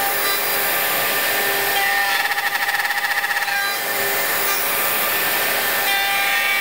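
Bosch GOF 1250 CE router running under load, its bit cutting box-joint fingers in a wooden board through a jointing-jig template, the motor note wavering as the cut bites. A Festool dust extractor runs with it, drawing off the chips.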